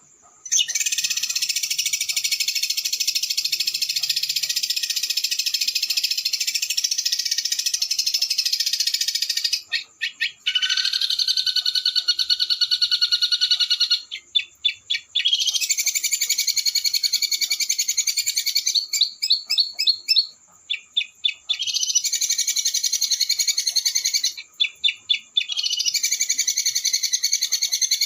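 Small songbird singing a fast, high, rolling trill in long runs, broken four times by short bursts of quick, sharp separate notes.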